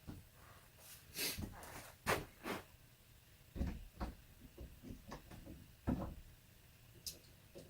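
Irregular knocks and clicks of a chainsaw's parts and tools being handled during maintenance on the saw: about eight short taps and clunks, with brief pauses between.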